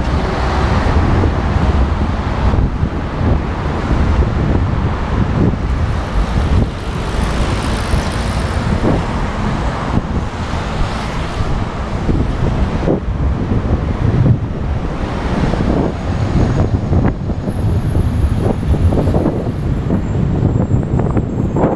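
Steady road-traffic noise mixed with wind rushing over the microphone of a moving bicycle.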